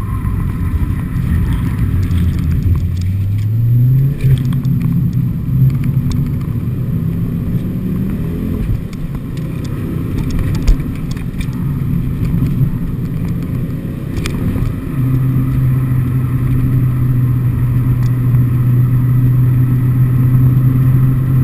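Ford Focus RS engine driven hard on a race circuit, heard from inside the cabin: the revs fall and climb again through the first few seconds with gear changes, then hold steady and high for the last several seconds.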